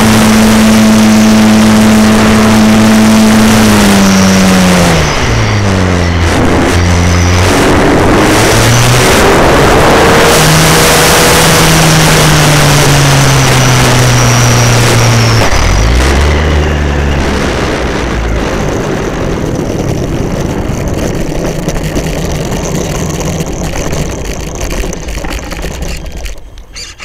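ParkZone T-28D RC plane's E-flite Power 10 brushless electric motor and propeller whining with a steady pitch and wind rush, heard from the plane itself. The pitch drops as the throttle is eased about five seconds in, rises again, then falls away about sixteen seconds in as the plane lands, leaving a fading rolling and wind noise as it rolls out on the asphalt.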